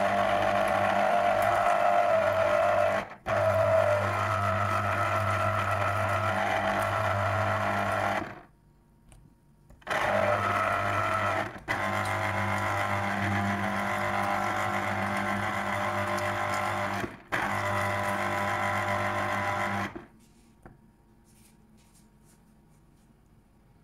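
Electric citrus juicer's motor running steadily with a low hum as an orange half is pressed down on its reamer cone. It stops and restarts several times, with a longer break about eight seconds in, and stops for good about twenty seconds in.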